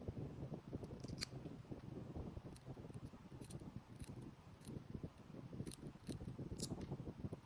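Close-up handling noise of small craft work: continuous rustling and scraping with scattered sharp clicks and snips.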